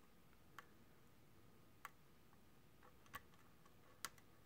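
Faint, sharp clicks of a hook pick working the pin tumblers of a 5-pin Iseo half-euro cylinder lock: four small clicks about a second apart over quiet room tone.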